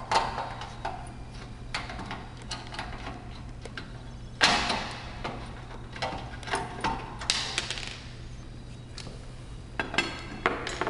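Scattered clicks and knocks of a flathead screwdriver backing out the two screws of a Weslock entry handle's inside escutcheon plate, and the plate being lifted off the door. The loudest knock comes about four and a half seconds in.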